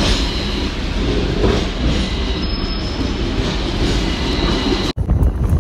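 Hong Kong double-decker tram running along the street, heard from its upper deck: a steady rumble and rattle of wheels on the rails with a faint thin squeal. It cuts off abruptly about five seconds in, and wind buffeting the microphone follows.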